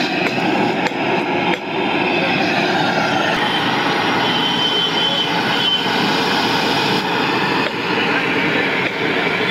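Steady, even roar of the tea stall's stove burner heating a large pan of boiling milk tea.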